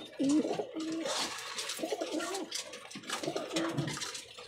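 Pigeons cooing: a series of short, low coos, one after another.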